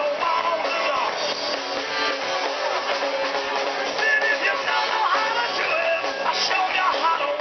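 Live rock band playing amplified, with electric guitar, drum kit and a singer.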